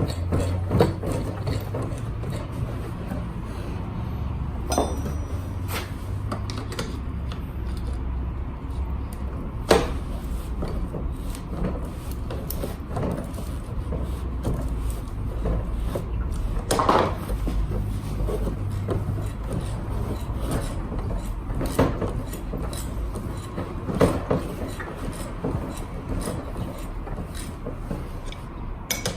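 Hand tools and metal parts knocking, clinking and rubbing, several separate knocks spread out, during work on a Honda Today scooter's seized rear wheel, with a steady low hum underneath.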